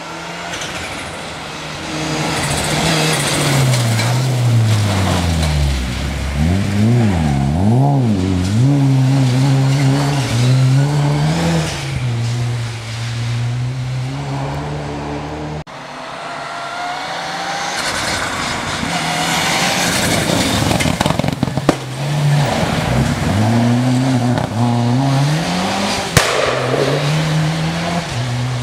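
Rally car engine driven hard on a gravel forest stage, its pitch swinging rapidly up and down through revving, gear changes and lifts for corners as the car passes. A second car then passes the same way, with a single sharp crack near the end.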